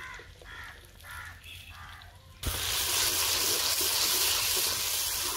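Ground tomato hitting hot oil and fried onions in a kadai, setting off a sudden, loud, steady sizzle about two and a half seconds in.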